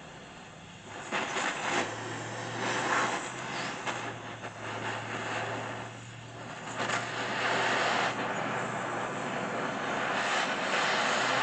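Gas torch flame hissing steadily against steel pipe that is being heated red hot for bending, swelling and easing, over a steady low hum.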